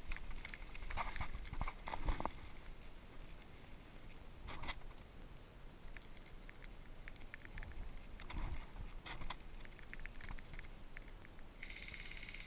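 Rustling and crackling of brush and twigs as someone moves through dense undergrowth, over a low wind rumble on the helmet-mounted microphone. The crackles come in clusters: at the start, about four and a half seconds in, and again around eight to ten seconds in.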